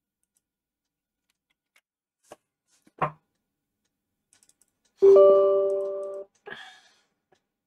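A few light computer keyboard clicks and a single knock, then a loud electronic tone about five seconds in. The tone has a steady pitch, holds for a little over a second, fades slightly and stops abruptly.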